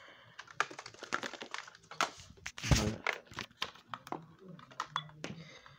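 Handling noise close to the microphone: a run of small clicks and rustles, with one heavier thump about three seconds in.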